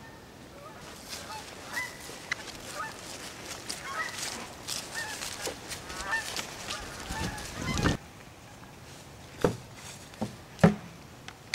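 Geese honking, many short repeated calls for several seconds that stop abruptly, followed by a few sharp knocks near the end.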